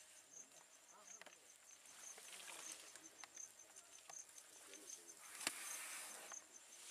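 Faint insect chirping, a steady run of evenly spaced high chirps like a cricket's. About five and a half seconds in there is a sharp click followed by a brief rustle.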